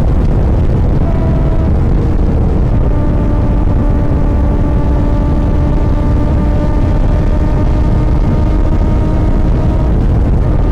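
Kawasaki ZX-10R sport bike's inline-four engine running loud and steady, with a deep rumble under a few held tones. There is no revving rise or fall.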